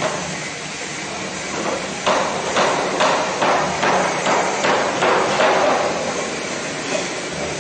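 Automatic spiral fan guard looping and welding machine working: a quick series of sharp metallic clacks, about two a second, starting about two seconds in and stopping near the middle, over a steady machine hum.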